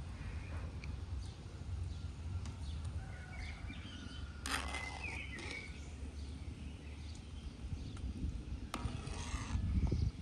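A large pot at a rolling boil, with a metal skimmer scraping and tapping against the pot and the wooden bowl as the foam is skimmed off the boiling beef heart.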